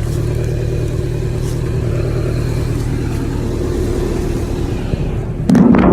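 A vehicle engine running steadily, with a loud, sudden noise breaking in near the end.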